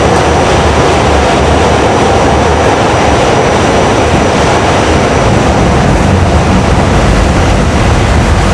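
An R68 New York City subway car running between stations through a tunnel, heard from inside the car: a loud, steady rumble of wheels on rail and running gear.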